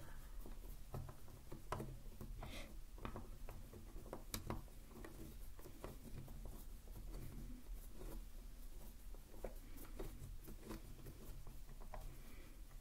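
Soft, irregular taps, clicks and light rustles of hands handling things close to a binaural microphone.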